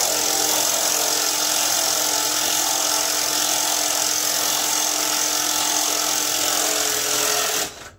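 A handheld power tool running at a steady speed without a break, then stopping shortly before the end.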